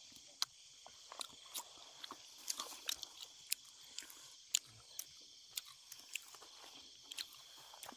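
Chewing and crunching on grilled skewered fish: irregular sharp crunches and clicks, over a steady high-pitched chorus of night insects.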